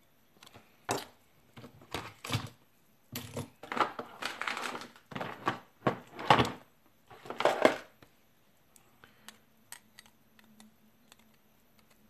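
Clicks, clinks and scrapes of a small brass lock cylinder and its metal parts being handled and worked on by hand: a busy, irregular run for the first eight seconds or so, then only a few faint ticks.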